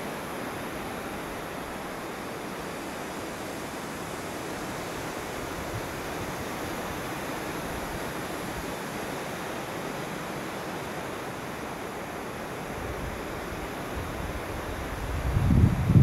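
Wind blowing across a ripe wheat field, a steady rustling hiss of the stalks and ears. Near the end, gusts buffet the microphone with a low, uneven rumble.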